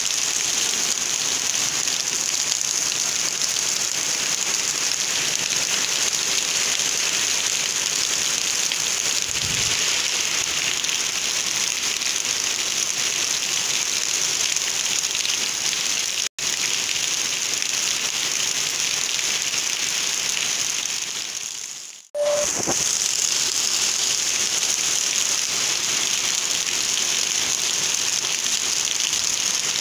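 Heavy rain pouring steadily, a dense even hiss. The sound drops out for an instant just past halfway, then fades and cuts out briefly about three-quarters through before the rain comes back.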